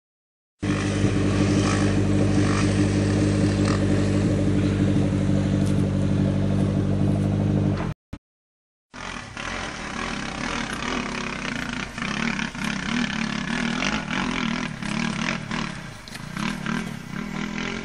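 Off-road 4x4 engine running at steady revs; after a break, engine revs rising and falling unevenly, with some rattling.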